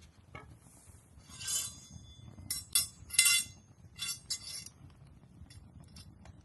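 Wood fire crackling, with a run of sharp pops and snaps in the middle, the loudest a pair of snaps about three seconds in, over a low steady rumble of flame.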